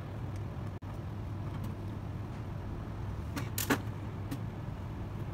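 Steady low hum of clean-room air handling, with two light clicks from small tools working at a hard drive's head-fixing screw about three and a half seconds in.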